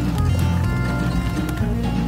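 Background music with a bass line that changes note every half second or so.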